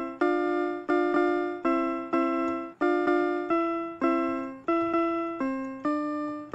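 Background music: a simple piano melody of single struck notes, about two a second, each fading before the next.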